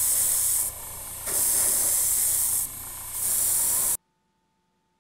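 Airbrush spraying paint in three long bursts of hiss, easing to a softer hiss twice in between. It stops abruptly about four seconds in.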